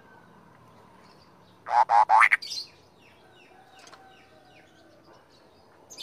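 Caged cucak kopi songbird singing: one loud phrase of quick, rising notes about two seconds in, followed by softer, scattered chirps.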